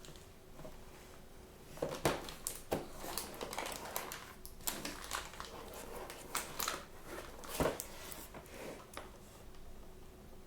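Toy blind-bag packaging crinkling and rustling as it is handled and opened by hand, a busy run of crackles starting about two seconds in with a few sharper snaps.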